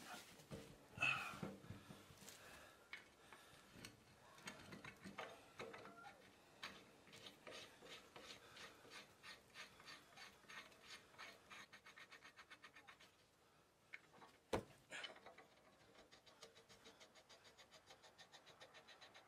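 Faint clicking and rubbing of lug nuts being turned onto a garden tractor's rear wheel hub by hand. There are stretches of rapid, even ticking and one sharp click about halfway through.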